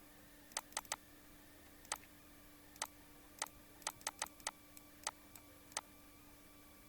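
Computer mouse button clicking about a dozen times at uneven intervals, some in quick runs of two or three, over a faint steady electrical hum.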